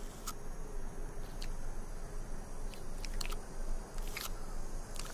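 Desert tortoise biting and chewing a prickly pear cactus pad, making irregular crisp crunches and snaps. There is a quick run of them about three seconds in and the loudest about four seconds in.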